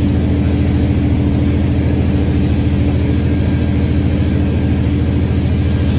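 Fire truck's diesel engine running steadily close by, a loud, even low drone with a fine rapid pulse.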